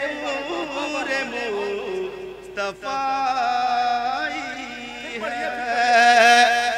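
A man singing a naat in a long, ornamented melodic run without clear words, settling into two long held notes, the second with a wavering vibrato and sung loudest.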